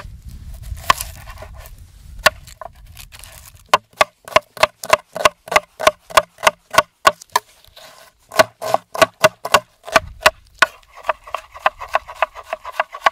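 Chef's knife chopping a red onion on a wooden cutting board: a few scattered cuts at first over a low rumble, then quick, even knocks of the blade on the board, about three or four a second, in runs broken by short pauses.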